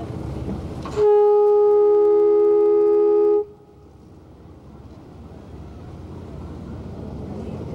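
A boat horn gives one long, loud blast of about two and a half seconds, starting about a second in and cutting off abruptly. A low steady rumble runs underneath before and after it.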